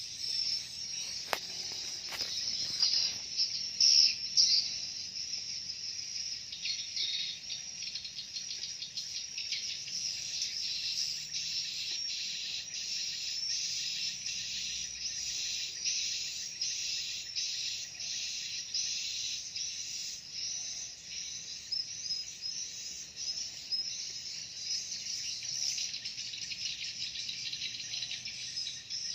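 Edible-nest swiftlets' dense, high-pitched chirping roosting calls (suara inap), in quick repeated chirps. These are the calls that swiftlet-house keepers use to keep juvenile swiftlets returning to roost.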